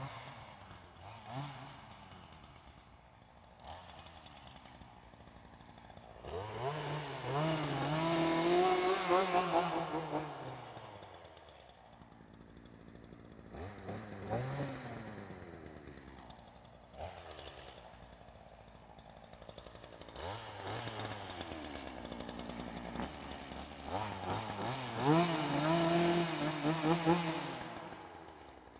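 Ryobi chainsaw engine idling and being revved four times, the pitch rising and falling with each rev: two long runs up to high revs and two short blips between them.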